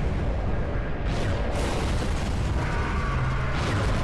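Explosion sound effects from an animated battle: a dense, continuous low rumble of blasts and debris, with music under it.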